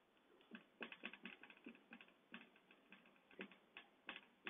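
Marker pen writing on a whiteboard: a faint, irregular run of short scratchy strokes and taps.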